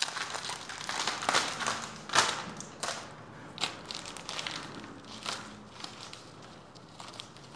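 Florist's wrapping sheet around a bouquet crinkling and crackling as it is gathered and handled, in irregular rustles with the loudest crackle about two seconds in, growing softer toward the end.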